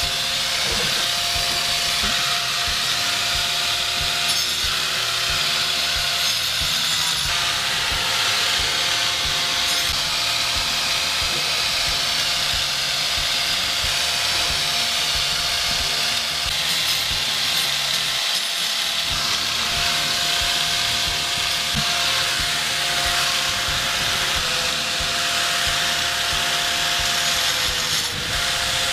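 Handheld electric angle grinder running continuously, its disc grinding into a rock to carve it, with a steady motor whine over a harsh grinding hiss.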